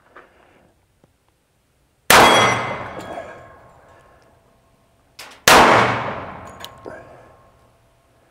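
Two .45 ACP shots from a Springfield Armory Champion Operator 1911 pistol, about three and a half seconds apart, each dying away over about two seconds with a metallic ring. The pistol is firing single shots with the hammer staying back, after it had been letting the hammer follow down.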